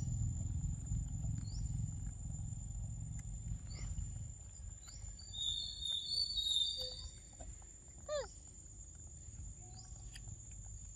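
Forest ambience. Insects keep up a steady high drone, and a bird gives short rising chirps every second or two, with a busier run of chirps in the middle. A brief falling call comes about eight seconds in, and a low rumble fades out in the first few seconds.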